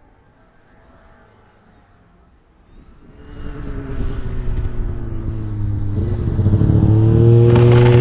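Snowmobile engine approaching, faint at first and then growing steadily louder from about three seconds in. Its pitch steps up a little around six seconds as it comes close.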